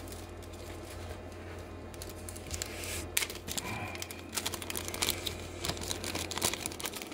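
Plastic bag crinkling and rustling in quick small clicks as a replacement circuit board is taken out of it, starting about two and a half seconds in, over a low steady hum.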